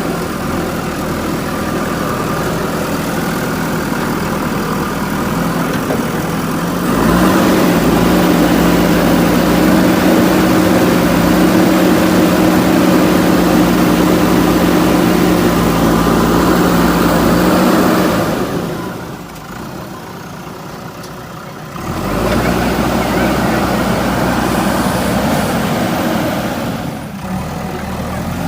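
JCB 3DX backhoe loader's diesel engine running steadily. It gets louder about a quarter of the way in, drops back for a few seconds about two-thirds of the way through, then comes up again.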